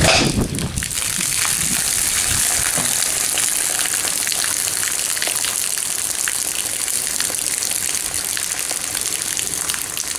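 Water running off clay roof tiles and pouring in a steady stream out of the end of a pipe gutter, splashing below, after a louder splash right at the start.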